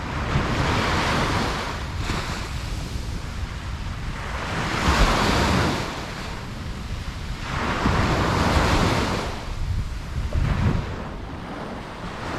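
Ocean surf on a beach: three waves wash in and recede, one every three to four seconds, over a steady low rumble.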